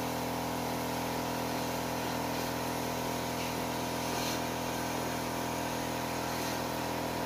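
Battery-powered spray pump of an air-conditioner cleaning kit running steadily with an even hum while it sprays water over the indoor unit's coil.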